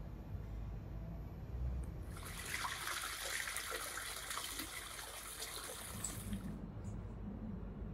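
Water pouring from a wooden spout into an open-air bath, splashing steadily onto the surface, from about two seconds in until about six and a half seconds in. Before and after it only a low background hum is heard.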